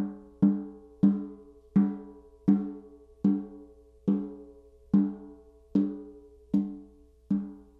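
Ludwig Supraphonic snare drum's Evans batter head tapped with a felt mallet at points around the head, about eleven even strokes, each ringing out with a clear pitch. The snare wires are off, so there is no snare rattle. This is a tuning check with the bottom head newly on, and the batter head now sounds less in tune than it did, because the two heads interact through the drum.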